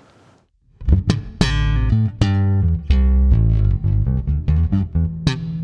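Fender Player Precision Bass played fingerstyle through its split-coil pickup with the tone control set halfway: a run of plucked low notes that starts about a second in.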